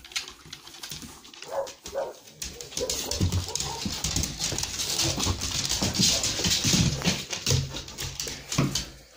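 Dogs moving about close by, with a few short whines, and a hand rubbing a dog's fur up against the microphone as it is petted; the rustling gets louder about three seconds in.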